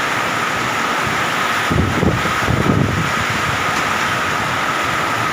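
Strong storm wind with wind-driven rain, a loud steady rushing noise. Gusts buffet the microphone a little under two seconds in and again near three seconds.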